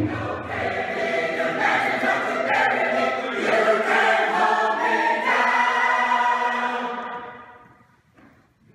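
Mixed choir singing in full harmony, a low drum boom ringing under the first second. The choir then holds a final chord that fades away about seven and a half seconds in, leaving near silence.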